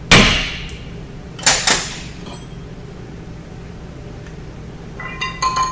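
Hammer blows on a rusted brake rotor to break it free from the hub: one loud metallic strike with a ringing tail just at the start, then two quicker, lighter knocks about a second and a half in. Near the end comes a brief metallic clatter with ringing.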